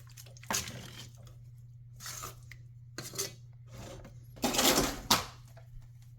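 Kitchen dishes and utensils clattering as they are handled: a few separate knocks and clinks, with the loudest clatter about four and a half seconds in, over a steady low hum.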